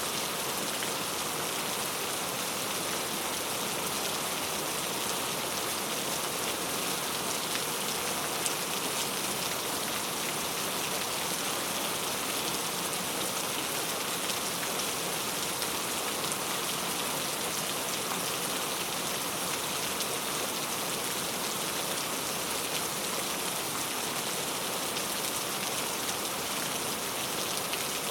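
Steady rain falling, an even hiss of many raindrops pattering on a surface with no let-up.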